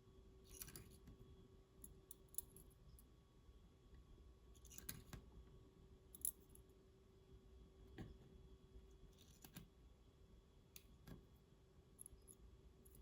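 Faint small clicks and brief scrapes of tiny metal lock parts being handled, about one every one to two seconds, as sidebar springs are fitted back into an Assa Twin 6000 lock, over a faint steady hum.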